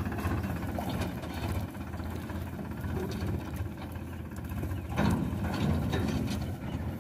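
Tractor diesel engine running steadily while towing a thresher, a low even hum that gets louder about five seconds in.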